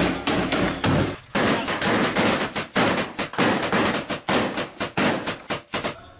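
Belt-fed machine gun firing from close by, in rapid bursts of several shots a second with brief breaks, inside a roofed sandbagged firing position; the firing stops near the end.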